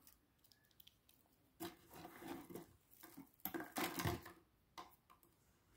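Faint rustling and light clattering of shredded ribbon-cable bits being handled, with a few sharp knocks in two short bursts.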